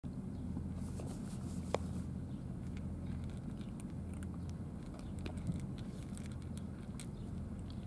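Two cats eating wet food from plastic trays, with many small wet clicks of chewing and licking, one a little louder just under two seconds in, over a steady low hum.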